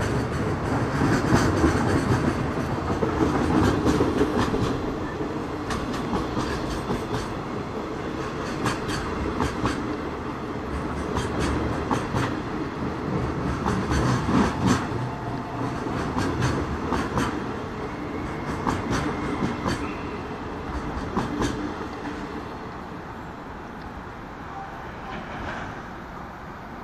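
Freight train's container wagons rolling past, wheels clicking irregularly over rail joints over a steady rumble. The sound slowly fades in the second half as the end of the train passes and draws away.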